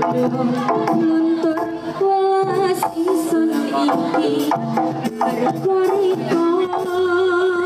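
Live jaranan ensemble music: a sustained, wavering melody line over frequent drum and struck-percussion strokes.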